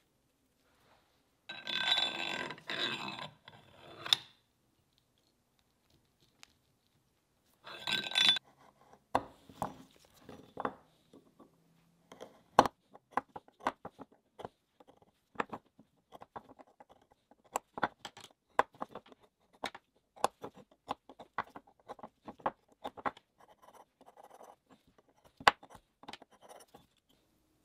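Two short bouts of scraping, then a long, irregular run of small clicks and taps as small metal and plastic parts are handled and set down on a wooden workbench.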